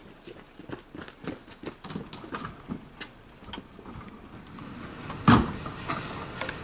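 Scattered knocks and clatter, then a loud slam about five seconds in as the steel wicket door set in the fire station's sectional garage door swings shut. A steady mechanical hum builds toward the end.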